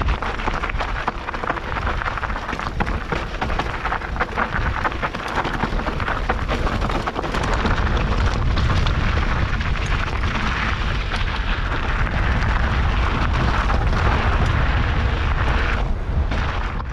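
Mountain bike descending a rocky trail: wind rumbling on the camera microphone, tyres crunching over loose rock and gravel, and the bike rattling with constant small knocks.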